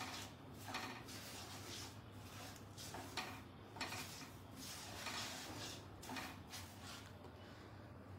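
Silicone spatula scraping and stirring semolina as it roasts in a non-stick kadai, in repeated strokes about twice a second, over a steady low hum. The semolina is nearly roasted golden, its raw taste cooked out.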